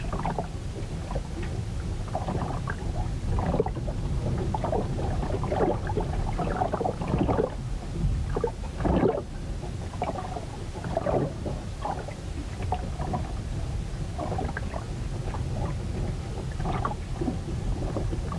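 Storm sound recorded aboard a ship: a constant low rumble with irregular slaps and sloshes of waves against the hull.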